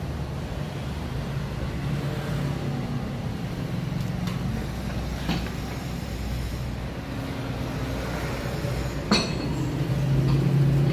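Steady low rumble of background road traffic, with a few faint knocks and one sharp knock about nine seconds in.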